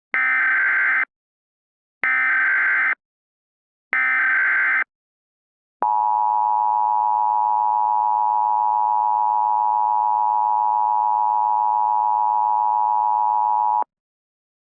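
Emergency Alert System tones: three one-second bursts of SAME header data tones about two seconds apart, then the steady EAS attention tone held for about eight seconds before it cuts off abruptly.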